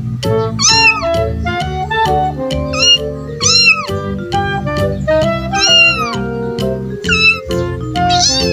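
Cat meowing repeatedly, about five rising-and-falling meows a second or two apart, over background music with a steady melody.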